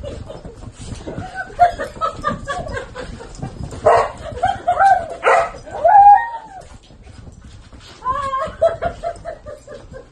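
Siberian huskies vocalizing during rough play: a run of short yips, barks and whining calls that bend up and down in pitch. The calls are loudest about four to six seconds in, then come again in a shorter run about eight seconds in.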